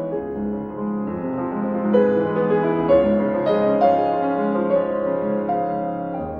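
Piano music playing: a melody of held notes over a repeating low accompaniment.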